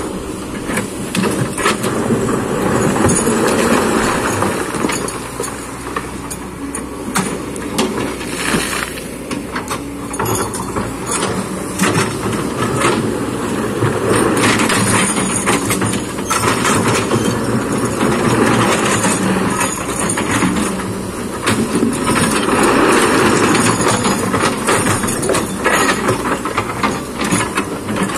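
Kobelco excavator's diesel engine running under load as it works, with repeated knocks and clatter of stone against the steel bucket.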